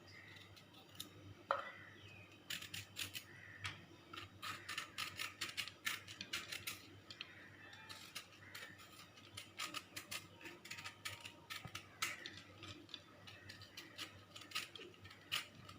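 Skin being scraped off spiny gourds (bhatkerela): faint, irregular short scrapes and clicks, coming in quick runs.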